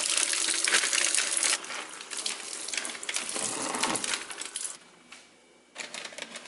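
Kitchen tap water running and splashing into a sink onto a reusable toaster bag as it is rinsed and rubbed by hand. The splashing stops about five seconds in, and a few light crinkles of the bag being handled follow.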